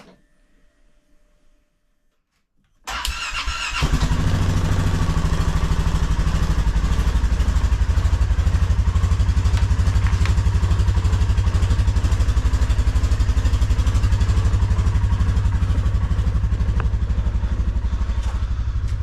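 Mini excavator's diesel engine started cold: about three seconds in the starter cranks it for roughly a second, then it catches and settles into a steady, evenly pulsing idle.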